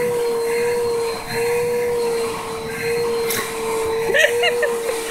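Upright vacuum cleaner running steadily with a motor hum, its rush of air swelling and easing several times. A sharp click comes a little past halfway, and a few short high squeaks come near the end.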